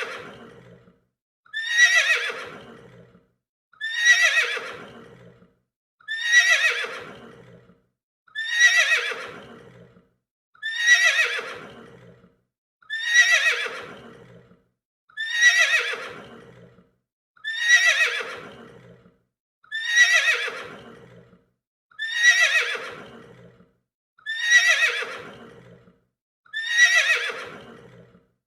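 Horse whinnying: the same neigh repeated about every two seconds, each call starting high and falling in pitch as it fades.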